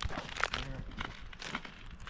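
Footsteps crunching on snow over lake ice, several separate steps.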